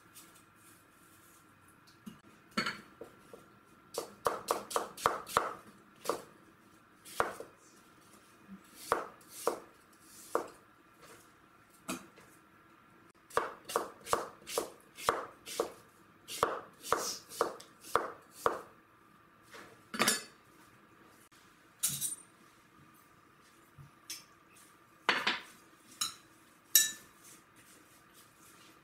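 Kitchen knife slicing an apple into thin wedges, the blade tapping on a plastic cutting board in quick runs of taps, about two a second. In the second half come a few separate, sharper knocks.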